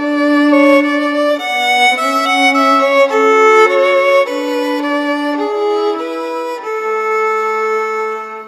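Violin playing a melody of separate bowed notes, ending on a long held note that fades away near the end.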